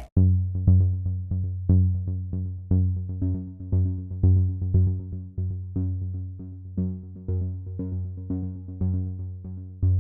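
Music only: an electronic synthesizer tune of short, decaying plucked notes, about two or three a second, over a steady bass line. It starts abruptly as a busier track cuts off.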